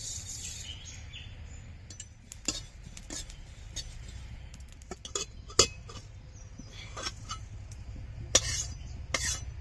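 A metal spatula clinking and scraping against a pan as whole cumin seeds are dry-roasted. The clinks come at scattered moments, the sharpest about halfway through and two more near the end, over a low steady hum.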